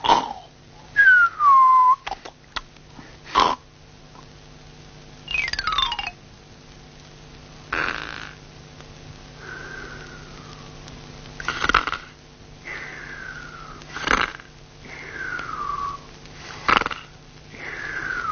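Cartoon snoring: a rasping snore on each in-breath followed by a whistle falling in pitch on the out-breath, repeating about every three seconds.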